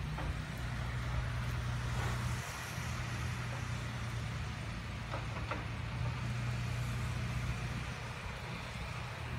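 Diesel engine of a tracked demolition excavator running steadily, a low drone, with a couple of faint knocks about five seconds in.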